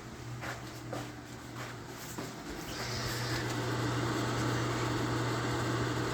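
A steady electric hum with a few light clicks, then, nearly three seconds in, a household appliance's fan or motor starts up and keeps running with an even rushing sound.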